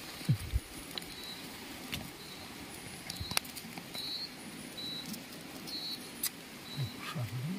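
Pebbles and dry stems clicking and rustling under a hand on a wet stony riverbank, over a steady hiss, with faint short high chirps. Near the end a low tone starts, sliding up and down.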